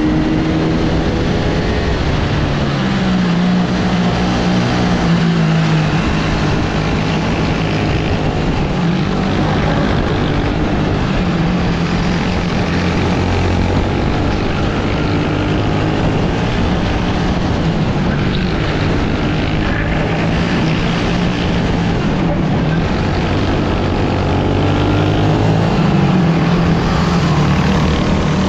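Sodikart RX250 rental kart engine heard from onboard at race pace. Its pitch climbs along the straights and drops back under braking into the corners, several times over.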